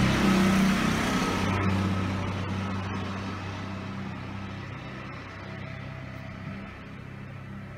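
A motor vehicle's engine running with a steady low hum, loudest at the start and fading steadily as it passes away.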